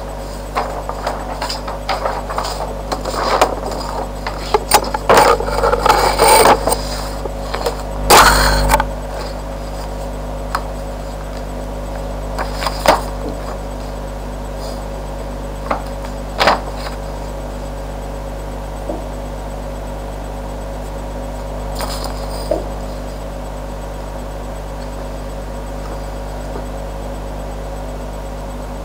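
Handling noise from over-ear headphones and their packaging moved about right against a webcam microphone. A cluster of knocks, rubs and clicks fills the first several seconds, the loudest thump about eight seconds in, followed by a few isolated clicks over a steady electrical hum and hiss.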